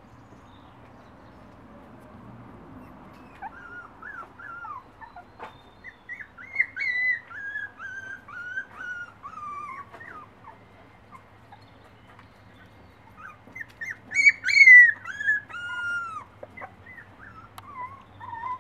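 Tibetan Terrier puppies, almost four weeks old, whining in strings of short, high, falling cries. The cries come in two bouts: one from a few seconds in to about ten seconds, and a louder one around fourteen to sixteen seconds, with a few more cries near the end.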